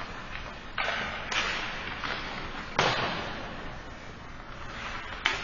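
Ice hockey play in an echoing rink: four sharp cracks, of sticks and puck against the ice and boards, each leaving a long echo in the arena, with a steady hiss of the rink between them.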